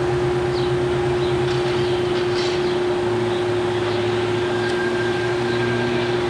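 Diesel locomotive engine running as a slow local freight train approaches, a steady low drone that pulses for the first few seconds and then settles lower.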